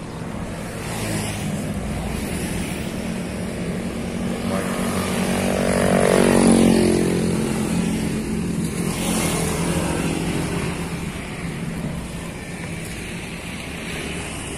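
Road traffic passing close by: a motor vehicle drives past about halfway through, its engine note swelling and then falling in pitch as it goes by, over steady traffic noise.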